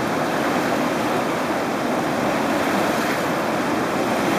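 Fast, turbulent river water rushing and churning in a steady, even wash.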